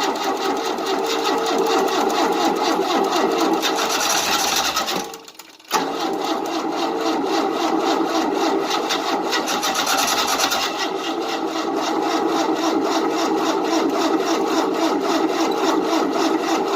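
Engine of a 1988 Tennant 255 Series II sweeper being cranked by its starter in an even, rapid rhythm without firing: two cranking runs, about five seconds and then about eleven, with a short break between. The engine turns over but doesn't catch, which the owner takes for it still not getting fuel.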